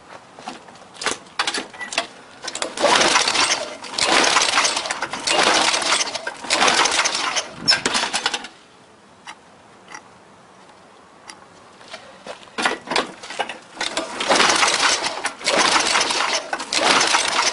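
Repeated recoil-starter pulls on a Toro mower's Tecumseh engine in two rounds, each a string of rough cranking bursts with a pause between the rounds. The engine cranks without catching: it won't start without quick start, from stale gas and a dirty carburetor.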